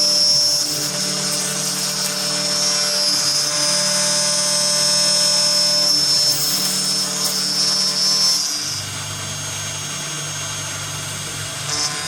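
Automatic wood boring machine running, its spindle motors giving a steady high whine over lower hums. About two-thirds of the way through, the high whine stops and a deeper hum carries on.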